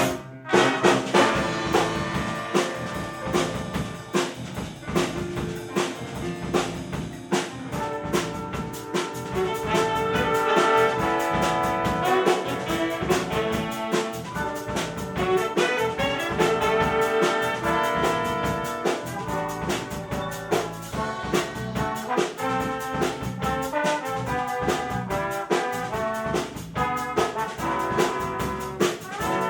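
Jazz big band playing live: a trumpet and trombone brass section over a drum kit in a jazz-funk groove, after a brief break right at the start.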